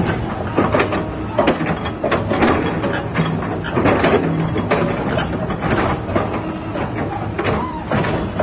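Komatsu hydraulic crawler excavator running as its boom and bucket are raised and lowered: a steady low engine drone under the hydraulics, with frequent short knocks and clanks.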